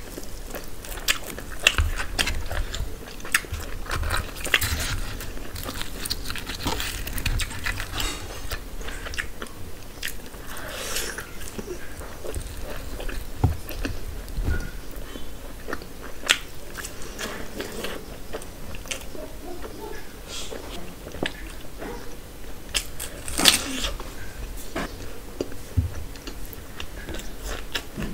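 A person eating by hand: biting and chewing puri and mutton curry, with irregular crunches and wet mouth smacks. The loudest crunch comes about two-thirds of the way through.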